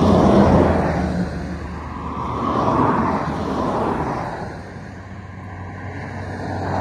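Highway traffic passing close by. A coach bus goes past, loudest right at the start and then fading, and a pickup truck swells and fades past a few seconds later.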